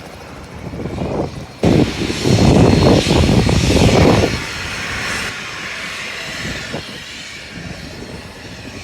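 Helicopter running, a dense rush of engine and rotor noise that swells much louder from about two to four seconds in, then settles to a steadier level.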